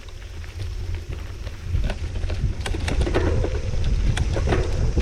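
Mountain bike riding over a dirt trail: wind buffeting the microphone, with tyres crunching and the bike rattling and knocking over bumps. It gets louder about two seconds in.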